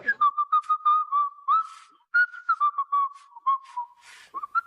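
A person whistling a casual, wandering tune in short phrases, as if to look innocent. A few brief hiss-like noises fall between the phrases.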